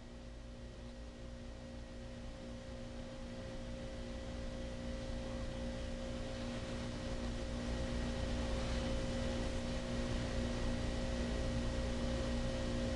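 A steady electrical hum, several fixed tones together, over a faint background hiss that slowly grows louder.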